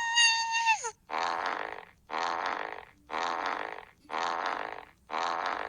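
Air let out through a stretched balloon neck: a steady high squeal that stops just under a second in, then five short raspy, sputtering blasts about a second apart.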